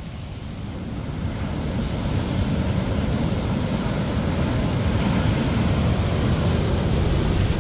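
Ocean surf: waves breaking and washing up a sandy beach in a continuous rush, growing steadily louder as a big wave curls and breaks.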